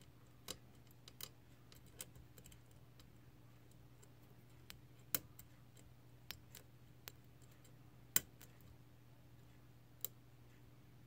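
Small, sharp clicks from a disc detainer pick turning the discs inside a five-disc brass euro-cylinder disc detainer lock, about ten of them at uneven intervals, the loudest about five and eight seconds in. These are the discs clicking as they are rotated while the lock sits in a deep false set.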